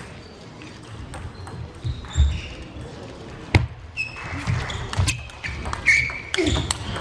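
Table tennis rally: sharp clicks of a plastic ball striking the table and the rubber bats, every half-second or so and louder from about halfway through. Crowd voices rise near the end.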